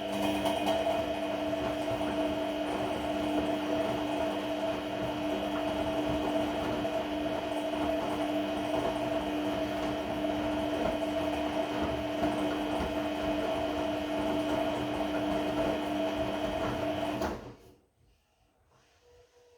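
Regal 1229 T washing machine turning its drum during a cotton 30 °C wash, with a steady whine that sounds like the drive belt. It runs for about seventeen seconds and stops abruptly, as the drum pauses between turns.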